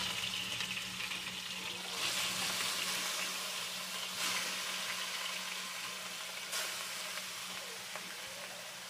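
Fish steaks frying in hot soybean oil in a pan, a steady sizzle that flares up about two seconds in and again around four and six and a half seconds as more pieces are laid into the oil.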